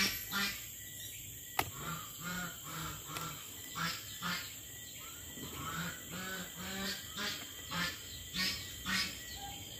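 Farm waterfowl calling, many short calls in quick succession, with a single sharp click about a second and a half in.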